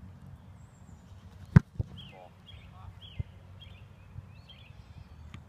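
A football punted: one sharp, loud thump of the foot striking the ball about a second and a half in, followed by a few smaller knocks. Birds chirp through the rest.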